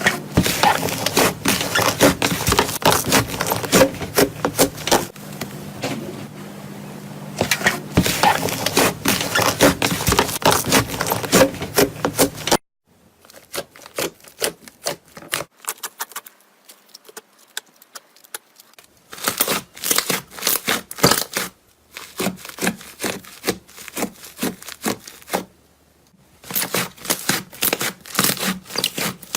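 Slime handled close to the microphone: dense crackly clicks and pops in several clips cut together. Around the middle it drops to quieter, sparser clicks, then picks up again.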